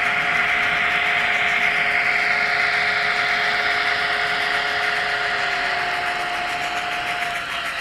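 N scale model diesel locomotive running along the track: a steady whine of its small electric motor over the rattle of its wheels on the rails. Near the end the lower tone slides down and the sound eases off.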